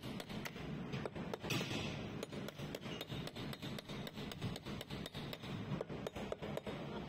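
Hammer tapping a flat steel scraper blade to work it in along a reefer container's detached PVC door frame: quick, light metal taps, several a second.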